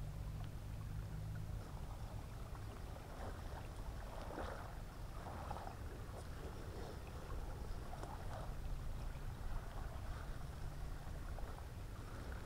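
Water trickling and sloshing through a cloth fish trap set in a rice-paddy outlet as it is trodden on and lifted out, over a low steady rumble.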